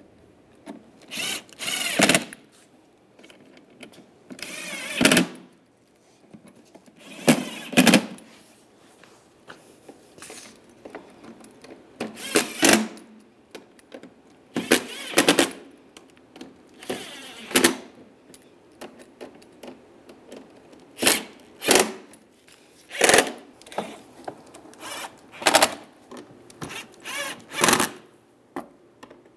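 Compact cordless driver running in short bursts, about fifteen of them, each a second or less, some with a wavering motor whine, as it drives and snugs screws into a plastic center console.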